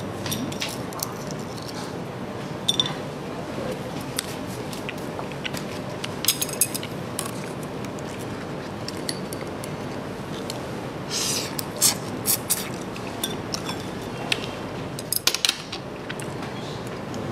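Chopsticks and tableware clinking against plates and bowls in scattered short clicks while someone eats, over a steady background hiss.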